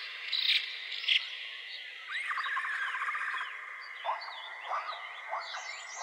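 Nature soundscape of birds chirping and whistling short rising and falling calls over a steady high-pitched background chorus.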